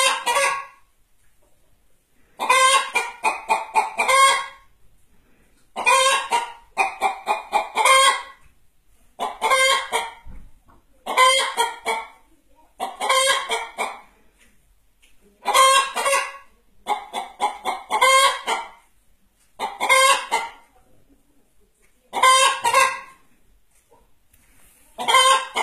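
A hen cackling: about ten bursts of quick clucks in a row, each burst a second or two long with short pauses between them.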